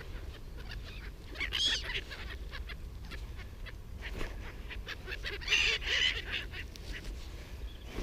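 Seagulls calling: a short call about a second and a half in, and a longer string of calls around five and a half to six seconds in.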